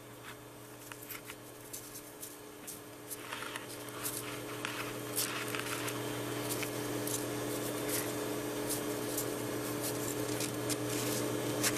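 Lab mice scratching and scrabbling in their cages, many small irregular clicks, over a steady low hum that slowly grows louder.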